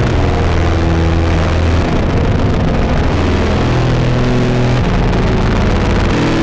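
Dark industrial drone music: a dense, noisy wall of rumble with sustained low tones that shift to new pitches every second or two.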